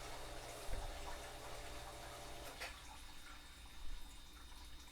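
Faint water running through the household plumbing from a washroom upstairs, a steady hiss with a low hum that stops about two and a half seconds in. A couple of light knocks.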